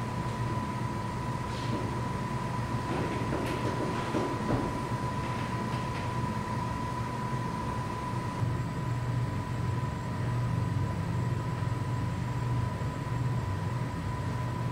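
Steady low rumble of room background noise with a constant high-pitched tone running through it. A few faint knocks and scuffs come from hands and shoes on the wooden climbing holds, mostly around the middle.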